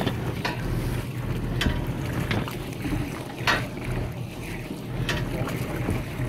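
A boat engine idling in a low, steady hum, with about five sharp knocks as the wooden boat hook pole bangs against the rail and the capsized hull.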